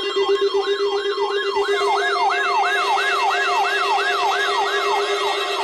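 Electronic siren alert of a NOAA weather radio receiver: a falling yelp that repeats about three times a second, over steady tones.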